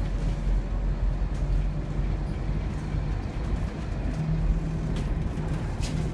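Inside a Scania K230UB Omnilink single-decker bus: its rear-mounted 9-litre five-cylinder diesel engine runs with a steady low drone, its tone growing louder about four seconds in. Two brief sharp sounds come near the end.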